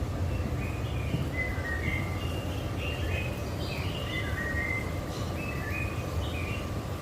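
Several small birds chirping and calling in quick, overlapping short notes, over a steady low background rumble.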